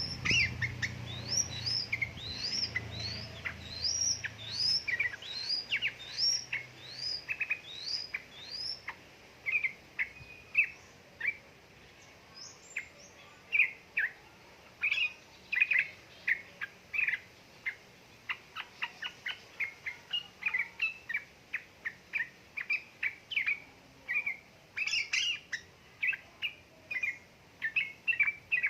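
Yellow-vented bulbul (trucukan) song: a string of quick rising whistled notes, about two a second, for the first several seconds, then a fast run of short chattering chirps.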